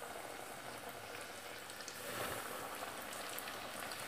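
Breaded chicken wings deep-frying in hot oil: a steady sizzle with fine crackling, swelling a little about halfway through.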